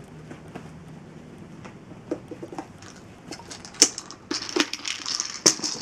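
Kibble rattling and clicking inside a hard plastic treat ball as a dog noses and pushes it around. Scattered clicks and knocks, with a sharp knock about four seconds in and denser rattling after that.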